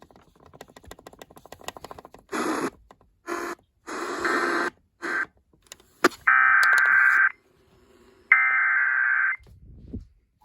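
Emergency Alert System SAME header tones: harsh, buzzy digital data bursts broadcast over radio. Two solid bursts about a second long, a second apart, come near the middle, after a run of shorter bursts and faint clicks.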